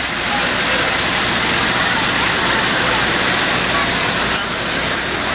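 Emergency rehab truck running at idle, a steady loud rumble and rush with no change. Faint voices in the background.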